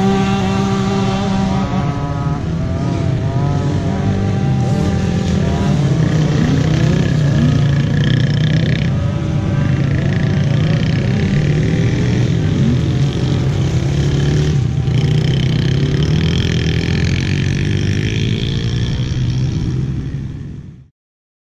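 Small youth dirt bike engines: one runs steadily close by while others rev up and down as they ride in the background. The sound cuts off suddenly near the end.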